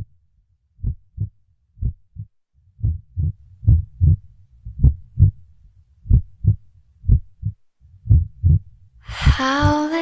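Heartbeat sound effect: deep double thumps, about one pair a second. Music comes in near the end.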